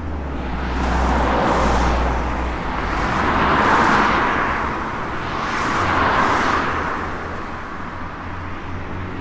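Road traffic: vehicles passing one after another, the noise swelling and fading three times, the last pass about six seconds in.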